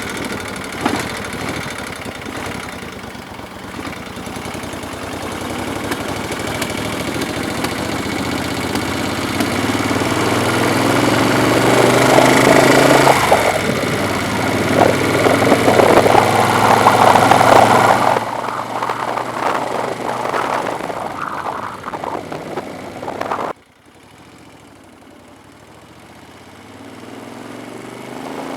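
1973 Moto Guzzi Eldorado's air-cooled V-twin engine running under way, with heavy wind rush on a helmet-mounted microphone, the noise building over the first two-thirds. The sound drops off abruptly about three-quarters of the way through to a much quieter background.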